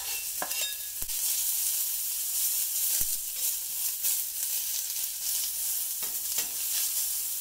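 Sliced onions sizzling in avocado oil on a hot stainless-steel Vevor electric flat-top griddle: a steady high hiss, with a couple of light knocks about one and three seconds in.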